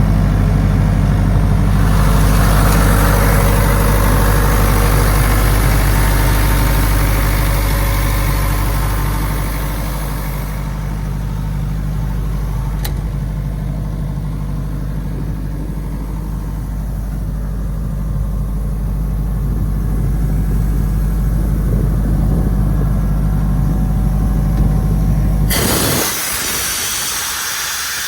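1997 Atlas Copco air compressor running, its engine giving a steady low drone, with a hiss of air over it for several seconds early on. Near the end the engine note cuts out and a loud hiss of released air takes over, the compressor blowing down its pressure.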